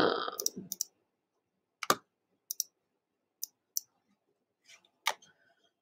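Computer mouse clicks while working in Photoshop: about nine sharp, isolated clicks spread over several seconds, some in quick pairs, after a short burst of noise right at the start.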